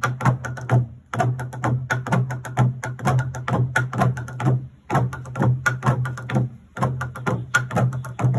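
Several wooden pestles beating fast and in rhythm into a long hollowed log trough: a rapid clatter of wooden strikes in phrases broken by short pauses, over a low resonant tone from the hollow log.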